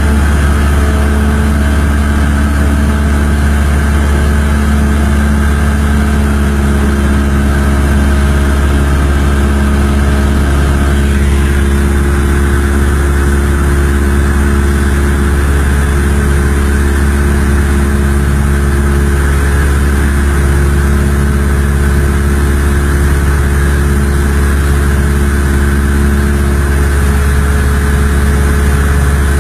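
Steady, loud engine drone: a deep hum with several steady tones above it, holding the same pitch.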